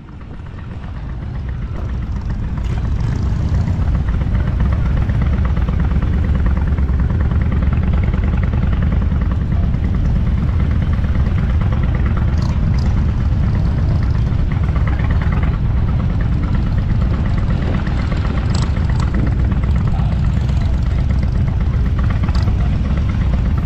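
Motorcycle engine running with a steady, low, pulsing rumble, swelling over the first few seconds and then holding steady, with a few faint ticks.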